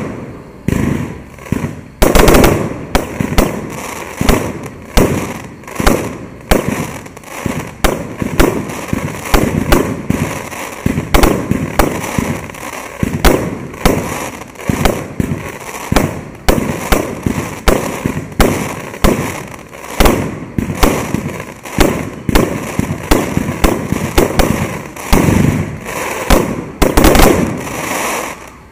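Fireworks display: aerial shells bursting in a rapid, continuous barrage, several sharp bangs a second with crackling between them.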